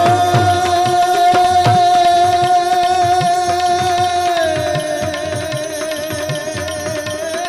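Gujarati devotional folk music: tabla playing a steady rhythm under a long held melodic note, which steps down to a lower pitch about four and a half seconds in.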